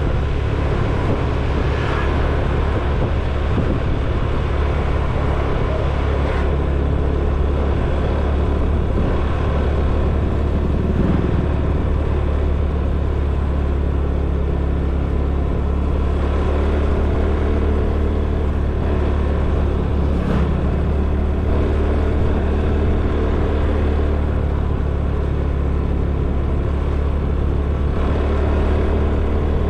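Motor scooter running at a steady riding speed, with a strong, even low rumble.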